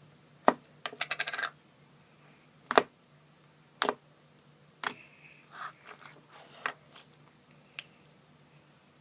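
Slime being pressed and poked by hand, giving sharp pops and clicks, with a quick crackling run about a second in and a few louder single pops after it.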